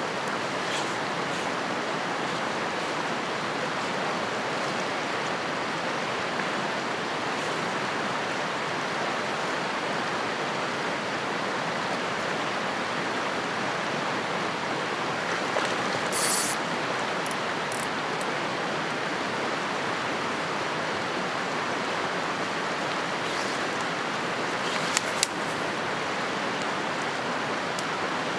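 Fast mountain river rushing over rocks and rapids, a steady even rush of white water. A brief burst of sound comes about halfway, and a couple of sharp clicks near the end are the loudest moments.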